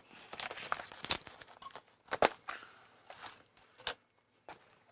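Cardboard shipping box being torn open by hand: cardboard and tape tearing and packing rustling, with a few sharp snaps, the loudest a little over two seconds in.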